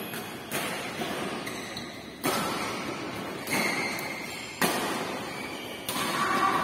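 Badminton rackets hitting a shuttlecock in a rally: about six sharp hits at uneven intervals of one to one and a half seconds, each echoing in a large hall.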